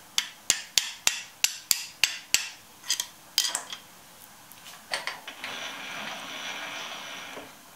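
Light metal-on-metal hammer taps, about three a second, eight in quick succession and then a few more, nudging a four-jaw chuck jaw clamped in a machine vise to bring one side up level under a dial indicator. A soft steady hiss follows in the last couple of seconds.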